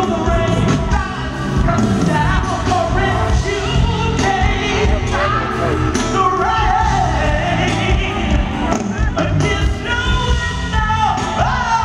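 A live soul/R&B band plays over a steady drum beat while a male lead singer sings into a handheld microphone through the PA.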